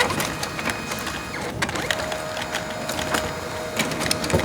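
Office printer running: a steady whine over a busy clatter of clicks, the whine dropping out briefly about a second and a half in.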